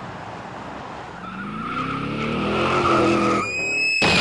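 Car tyres squealing in a skid, growing louder over a couple of seconds, with a sharp high squeal just before a loud crash near the end as the car slams into the side of a lorry's trailer.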